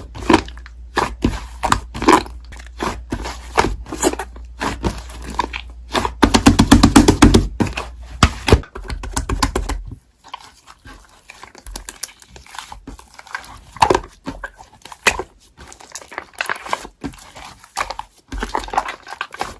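Slime being squished, poked and stretched by hand, giving a string of sticky clicks and pops. About six seconds in there is a two-second run of fast squishing.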